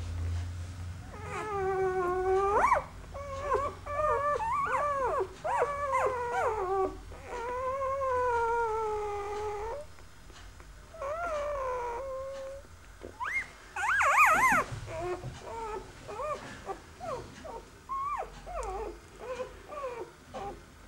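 Young Hovawart puppies whimpering and crying: long wavering whines through the first half, the loudest, highest-pitched cry about fourteen seconds in, then a string of short squeaks.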